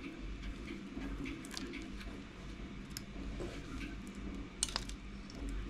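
Small clicks and taps of an HC-05 Bluetooth module and its jumper wires being handled over a breadboard, over a steady low room hum, with one sharper click about three-quarters of the way through.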